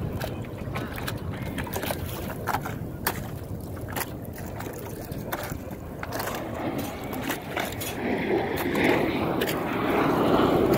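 Wind and water around a boat with scattered sharp knocks, then from about eight seconds in the growing noise of a US Air Force Thunderbirds F-16 jet flying in, getting louder toward the end.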